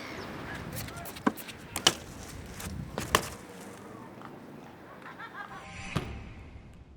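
Several sharp knocks and clacks, irregularly spaced, over a steady background noise that fades out at the end.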